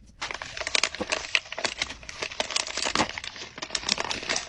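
Paper blind bag being torn open and handled, a dense run of crinkling and tearing paper that starts just after the beginning.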